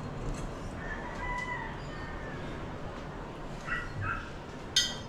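Two short animal calls, faint, about four seconds in, followed by a sharp click.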